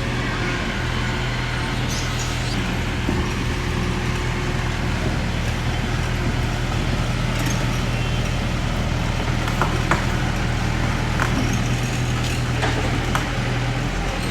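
Heavy diesel engine of earthmoving machinery running steadily, with a few short high squeaks in the second half.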